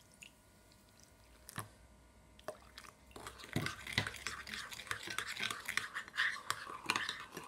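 Warm water poured softly onto yeast and sugar in a glass bowl, then a spoon stirring the mixture, clicking and scraping against the glass from about three seconds in. This is a yeast starter being mixed for proofing.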